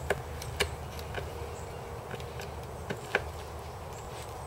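A few short, sharp clicks, spread irregularly, of a screwdriver and fasteners working against the seat's metal swivel-mount plate as screws are driven into the plastic seat base.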